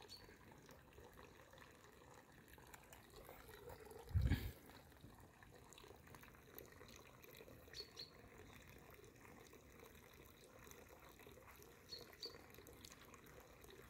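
Faint small plops and drips at the surface of a fish pond, with one short, deep thump about four seconds in that is the loudest sound.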